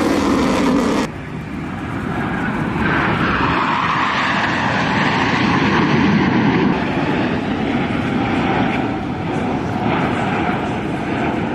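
Jet engine noise from Blue Angels F/A-18 Super Hornets flying overhead. It drops off abruptly about a second in, then swells back up and stays loud as the four-jet formation passes.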